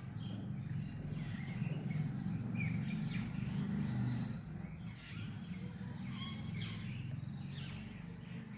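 Birds chirping now and then over a steady low hum.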